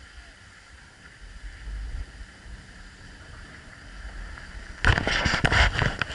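Skis sliding over groomed snow with a steady hiss and low wind rumble on the microphone; close to five seconds in, a loud rough run of scraping as the ski edges bite into hard-packed snow.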